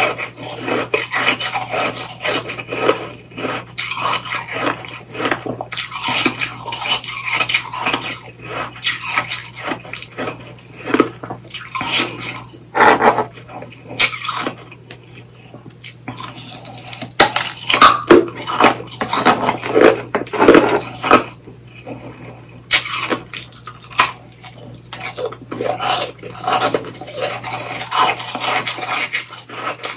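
Ice being bitten and chewed close to the microphone: dense, sharp crunching and crackling, with short pauses about halfway and two-thirds of the way through.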